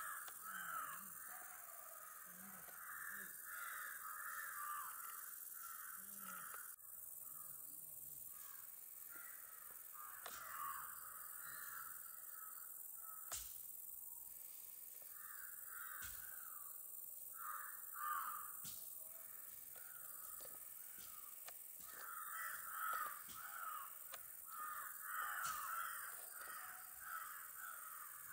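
Birds calling again and again in clusters, with short lulls about seven and fourteen seconds in, over a steady faint hiss and a few sharp clicks.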